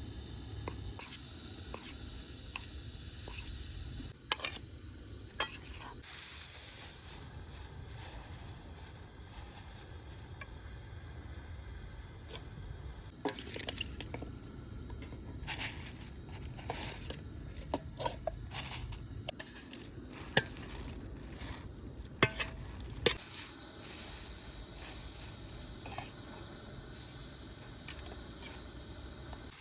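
Scattered clicks and clinks of cooking utensils against pots and dishes over a steady high hiss. The hiss strengthens about six seconds in and again near the end.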